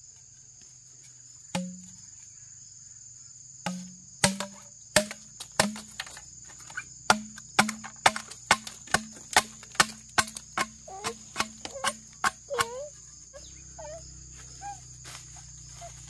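Chopping with a blade on a wooden block: single sharp strikes at first, then a quick run of about two strikes a second that stops near the end, over a steady high insect drone. Near the end short rising-and-falling animal calls come in.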